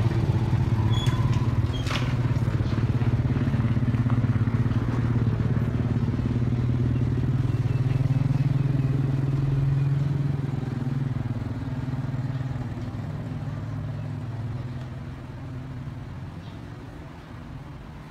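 Low, steady engine hum that holds for several seconds and then fades away gradually over the second half, with a single sharp click about two seconds in.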